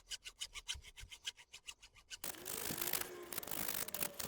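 Hacksaw cutting part-way through the steel wire armour of an SWA cable, in quick even strokes about six a second. A little over two seconds in, it turns into a denser, continuous scraping with a faint squeal.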